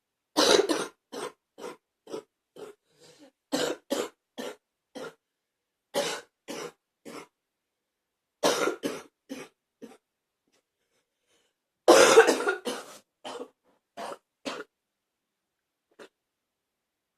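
A person coughing in five fits of several coughs each, a second or two apart, the first fit and the one about twelve seconds in the loudest, then one faint cough near the end. It is a lingering cough that has not cleared.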